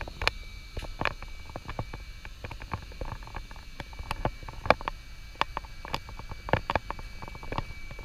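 Irregular clicks and taps, a few sharper than the rest, over a low rumble, with a faint steady high whine.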